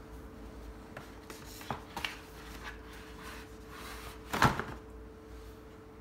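Cardboard gift box and paper shopping bag being handled: a few light taps and rustles, then one sharp thud about four and a half seconds in. A faint steady hum sounds underneath.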